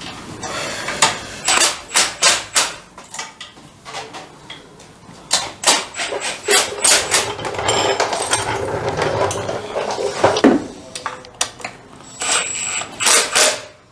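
Irregular knocks, clanks and scraping of hand tools and metal parts being worked on, with some brief metallic rings.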